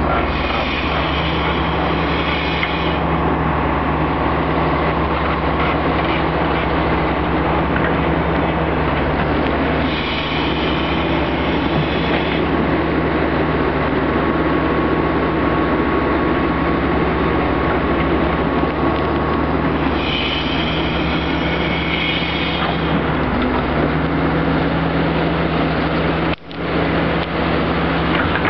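Diesel engine of a Terex Atlas tracked excavator running steadily under digging load. A high whine comes in three times, for a couple of seconds each, about every ten seconds as the bucket works.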